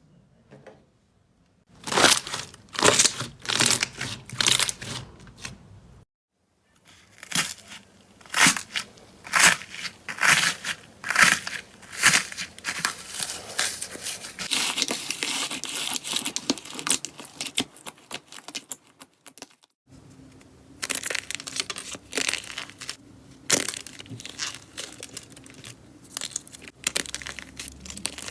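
Slime being pressed, squeezed and pulled apart by hand, giving many short crackly, crinkly bursts. It comes in three takes separated by brief gaps.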